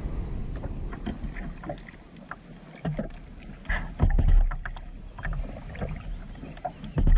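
Paddling a plastic kayak: small irregular splashes, drips and knocks from the paddle and hull, over a low rumble, with heavier low thumps about four seconds in and again near the end.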